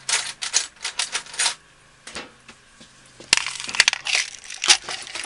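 Small hand file rasping across the tops of lock pins in a deadbolt cylinder plug, with the key held in, to bring the pins flush with the plug. There is a quick run of short strokes, a pause, then a second run of strokes.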